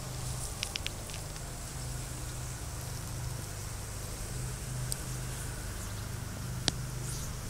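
Young European hedgehogs moving through dry grass: a few short crackles and clicks about a second in and one sharp click near the end, over a low steady rumble.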